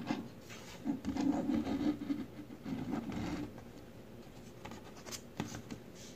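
A small die-cast toy tram and a paper sticker sheet are handled on a wooden tabletop: irregular scraping and rubbing, with a couple of light clicks about five seconds in.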